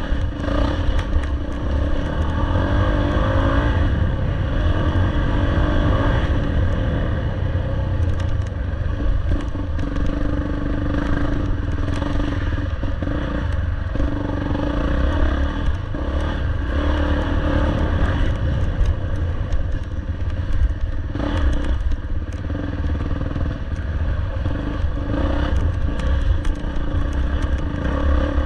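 Off-road dirt bike engine running through a harescramble course, with scattered knocks and clatter throughout.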